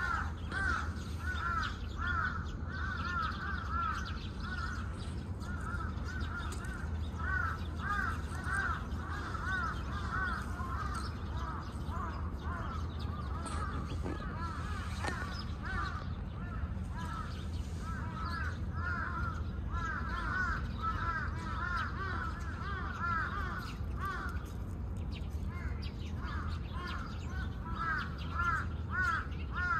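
Birds calling continuously, a stream of short arched calls several a second, over a low steady rumble.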